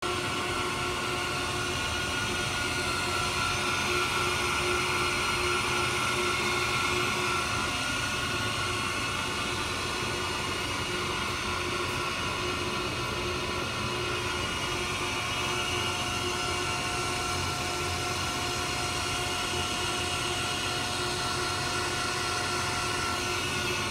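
Reid No. 2-C surface grinder running under power, its spindle motor and grinding wheel turning with a steady hum and a few held tones, not cutting.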